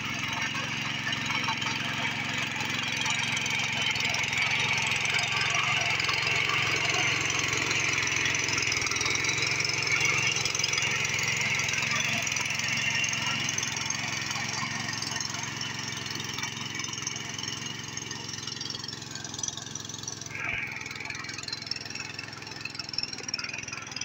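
Power weeder (walk-behind rotary tiller) engine running steadily under load as its tines churn through wet paddy soil. Louder as the machine passes close, then fading as it moves away.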